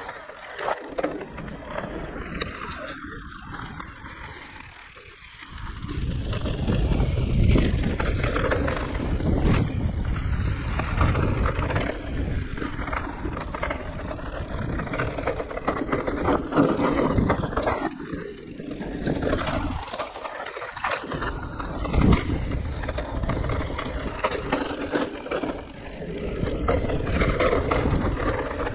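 Giant Reign E+ electric mountain bike riding down a rough enduro trail: tyres rumbling over the ground and the bike rattling. It is quieter for the first few seconds, then much louder from about five seconds in, with brief lulls later.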